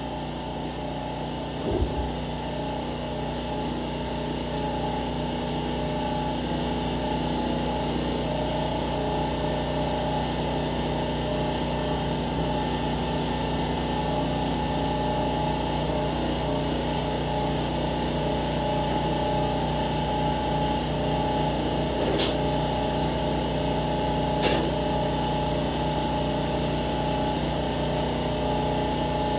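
Steady machine hum at an even level, with a single knock about two seconds in and two short sharp clicks in the last third.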